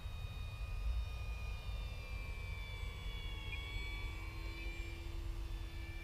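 Electric motor and propeller of a Dynam C-188 RC crop-duster plane whining high as it makes a low pass, the pitch sagging slightly as it goes by, over a steady low rumble.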